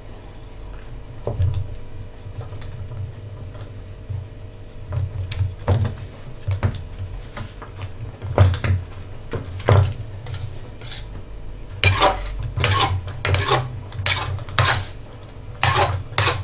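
Knocks, clinks and scrapes of a round metal cake tin on a marble worktop as pastry dough is pressed into it by hand. The clinks are sparse at first and come thick and fast in the last few seconds.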